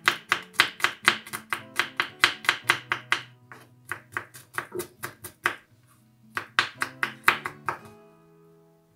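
Chef's knife mincing garlic on a wooden cutting board: quick, sharp knocks of the blade on the board, about five a second, thinning out about three seconds in, picking up again in another quick run, then stopping shortly before the end.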